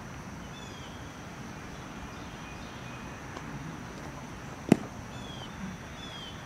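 A pitched baseball smacking into the catcher's mitt once, a single sharp pop about five seconds in, over a steady high insect buzz and a few faint bird chirps.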